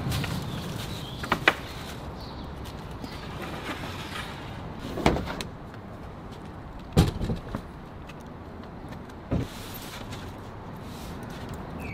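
Scattered knocks and clunks of gear being lifted and set down on a pickup truck's bed: a plastic crate, a car battery and a styrofoam cooler. There are about five sharp knocks, the loudest about a second and a half in and about seven seconds in, over a steady background hum.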